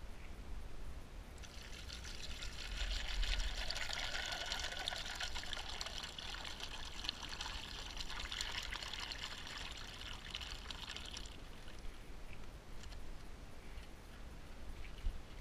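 Water poured from two plastic bottles at once into a small bucket of ice cubes, splashing and trickling over the ice. The pour starts about a second in, runs for about ten seconds and stops suddenly.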